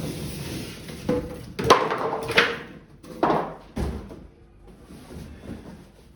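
A string of knocks and bumps, as of objects being moved and set down, loudest between about one and four seconds in.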